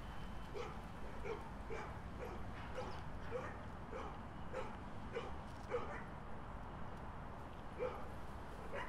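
Dog barking over and over, about two short barks a second, pausing for a moment about six seconds in and starting again near the end, over a steady low background rumble.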